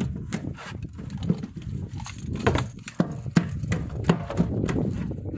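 Irregular sharp knocks and clacks on a fishing boat's deck as the hook and lure are worked out of a landed king mackerel, over a steady low rumble. The knocks come most thickly in the middle of the stretch.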